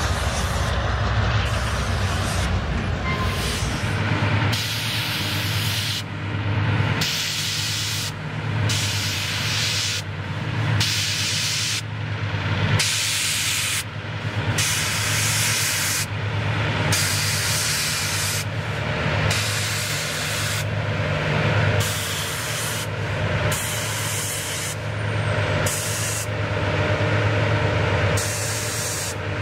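Freight train hauled by two GE C30-7 diesel locomotives passing, the engines a steady low drone. Over it, a loud hiss comes and goes about every second or so.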